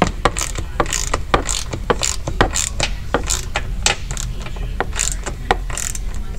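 Hand ratchet with a T30 Torx bit clicking as it turns a screw into a hawser bolt, in quick, slightly uneven clicks about three a second.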